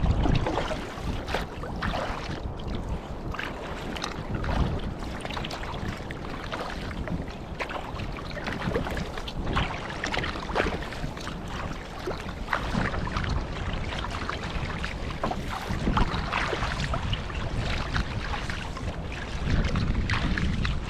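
Lake waves splashing and slapping against a kayak hull in choppy water, with wind buffeting the microphone, the wind rumble growing stronger near the end.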